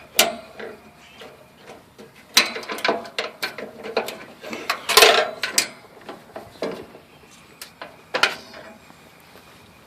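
Irregular knocks, clicks and rattles of hard parts being handled as a battery is set into a riding lawn tractor, with the loudest clatter in the middle and a few last knocks near the end.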